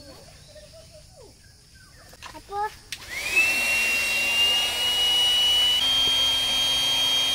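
Small handheld electric air pump on a sleeping pad's valve: it starts about three seconds in with a quick rising whine, runs steadily, steps a little higher in pitch near the end, then is switched off and winds down with a falling pitch.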